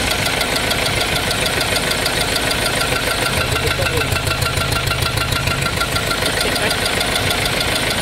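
2.2-litre diesel engine idling with a steady, rapid knock, which the mechanic puts down to the piston rings. A deeper drone strengthens for a couple of seconds midway.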